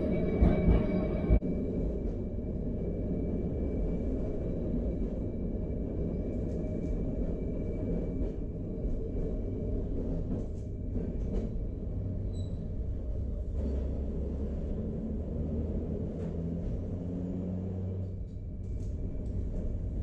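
1942 Trondheim Sporvei tram running along street track, heard from inside the car: a steady low rumble of wheels on rails and motors. A few knocks come in the first second or so, with scattered light clicks after.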